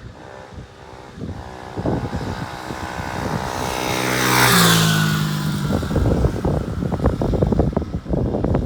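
Tao Motor DB14 110 cc dirt bike engine passing close by. It grows louder as it approaches, then its pitch drops sharply as it goes past about halfway through. Wind buffets the microphone afterwards.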